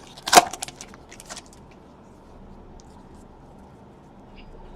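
Trading cards being handled on a table: one sharp rustling snap, then a few light clicks, then only faint room hiss.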